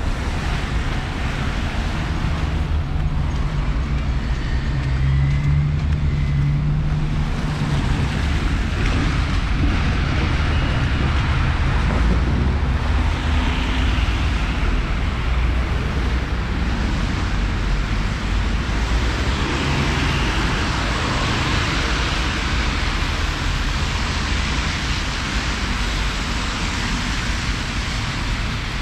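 Street traffic: cars passing, a continuous rush of tyres and engines, with one engine's low hum standing out from about two to seven seconds in.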